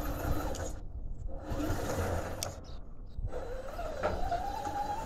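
RC crawler's 550-size 20-turn brushed electric motor and gear drivetrain whining under throttle. The whine drops out twice briefly, then rises in pitch about four seconds in.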